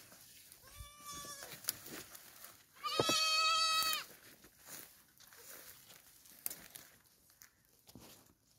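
Goat bleating twice: a shorter, quavering call about a second in, then a louder, longer call about three seconds in that drops in pitch as it ends. Light clicks and rustles come in between.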